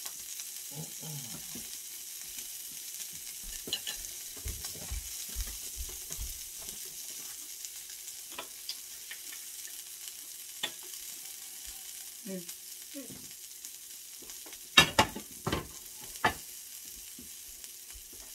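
Thin-sliced steak sizzling on an electric tabletop grill, a steady high hiss, with small clicks of tongs as the pieces are turned. A few sharp clacks near the end are the loudest sounds.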